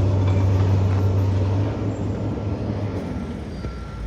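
Heavy diesel demolition machinery running steadily, its engine hum dropping away about three seconds in. Faint reversing beeps start near the end.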